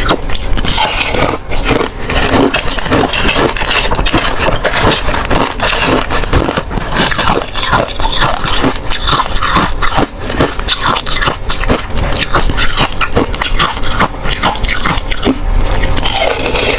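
Ice being bitten and crunched between the teeth close to the microphone: a dense, unbroken run of sharp cracks and crunches.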